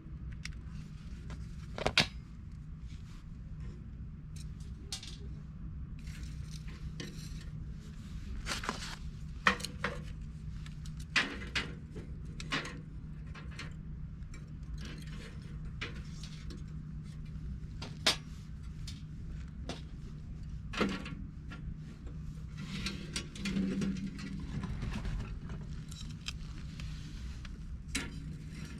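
Scattered clinks, clicks and knocks of camp gear and utensils being handled, over a steady low hum.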